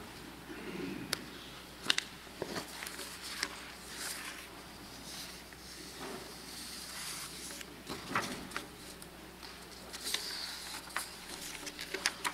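Faint background hiss with scattered small clicks and taps at irregular moments.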